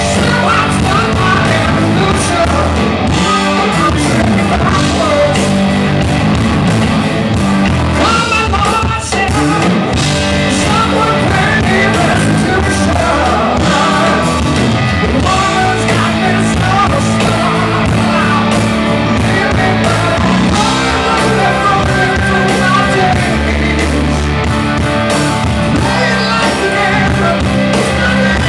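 Rock band playing a song live at full volume, with a man singing lead over amplified instruments.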